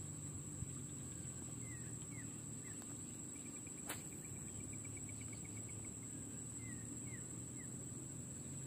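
Quiet pondside ambience: a steady high insect drone under scattered short falling bird chirps, with a run of rapid ticks through the middle and one sharp click about four seconds in.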